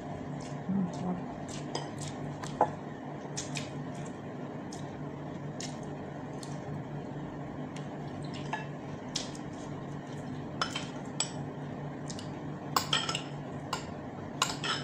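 Eating sounds: scattered short wet clicks of chewing and lip smacks from someone eating by hand. Near the end come a few louder clinks of a metal spoon against the dishes, over a steady low hum.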